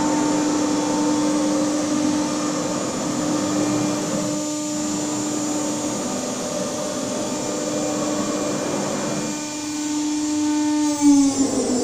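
Motionmaster 5-axis CNC router running: a steady mechanical whine over a rushing noise. Near the end the whine slides down in pitch with a brief knock.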